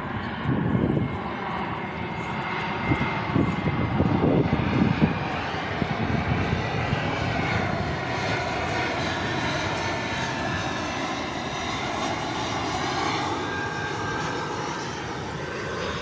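Airliner flying low overhead as it climbs out over the sea: a steady engine rumble with faint tones that slowly sweep up and down.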